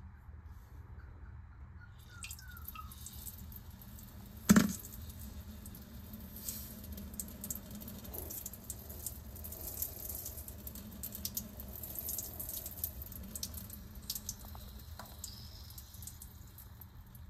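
Urine stream trickling and splashing into a toilet bowl and over a plastic test stick, starting about two seconds in and running on with lots of fine splashes. A single sharp knock a couple of seconds after it starts.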